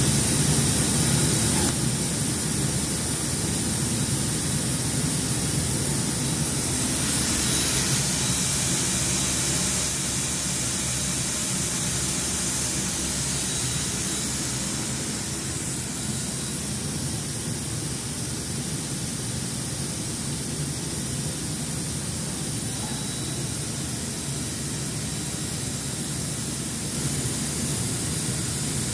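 Digital knife cutting machine running through a cut: a steady rushing noise with a low rumble beneath it, easing slightly about halfway through.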